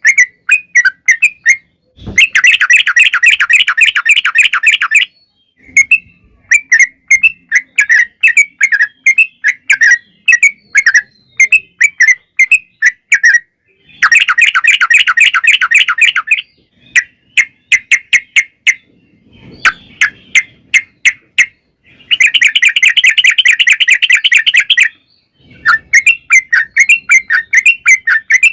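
Yellow-vented bulbul (trucukan) song: quick runs of short, bright chirping notes, broken three times by long rapid trills lasting two to three seconds each.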